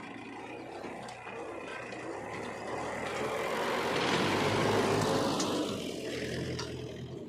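Heavy diesel machine engine running, swelling louder and noisier about four to five seconds in, then easing off again.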